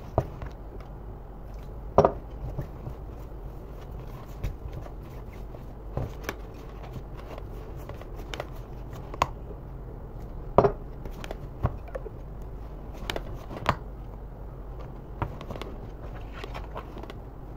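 A spoon stirring flour and water into pizza dough in a plastic tub: soft scraping broken by irregular sharp knocks as the spoon strikes the tub's sides, every second or few.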